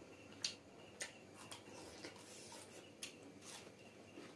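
Faint mouth sounds of people eating with their hands: chewing and lip smacking, with short, sharp clicks about every half second.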